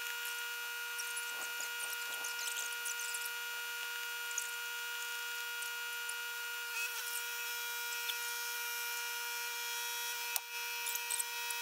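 A steady hum with several overtones, with faint high squeaks now and then and one sharp click about ten seconds in.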